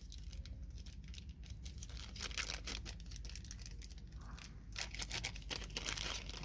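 Plastic packaging crinkling and rustling as a small bagged accessory is handled and opened, with louder bursts of crackle about two and a half seconds in and again after about five seconds.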